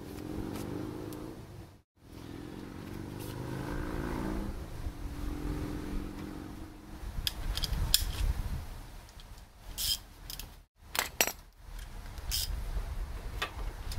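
Hand tools working on a car's brake caliper bracket: a low, wavering scraping in the first few seconds, then several sharp metal clinks of tools and parts.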